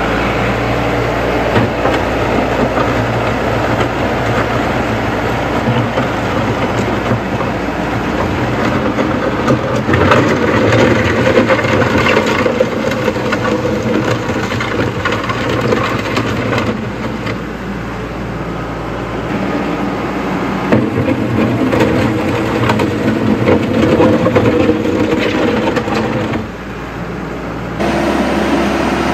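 Diesel engine of a compact utility tractor with a front loader, running steadily as the tractor drives through flowing creek water, with the water rushing around it. The sound shifts abruptly in level and tone several times.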